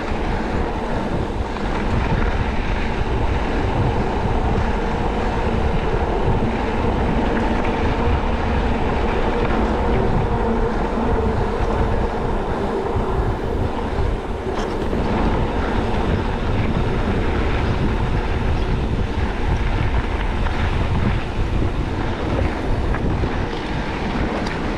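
Wind buffeting the microphone over the steady rattle and rolling noise of an enduro e-bike riding over a rough trail.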